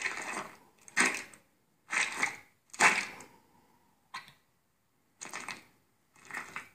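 Cartoon sound effects of handfuls of mashed potatoes being scooped and slapped into a heap: wet squelches, about one a second, seven in all.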